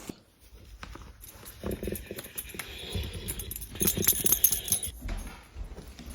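Excited dog moving about during a reunion: quick taps and scuffles of paws, with light jingling, loudest around the middle.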